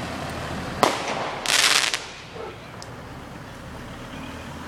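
Fireworks going off: a sharp bang about a second in, then a loud burst of crackling hiss lasting about half a second.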